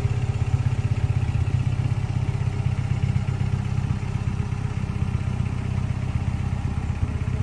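Toyota 22RE 2.4-litre four-cylinder engine of a 1988 Toyota pickup idling steadily, with a rapid, even exhaust pulse.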